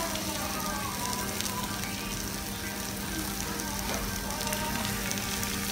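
Salmon, egg and vegetables sizzling on a hot iron serving plate, a steady hiss.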